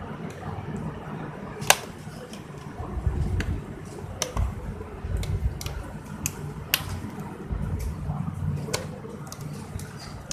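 Scattered sharp clicks and taps of a laptop's case being handled and opened to reach the RAM slot, with the loudest click about two seconds in.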